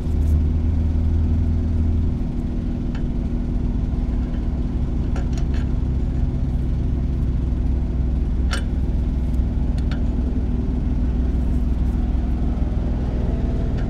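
Steady low hum of an idling vehicle engine, with a few single sharp metallic clicks as a wrench works a fitting on the truck's air lines.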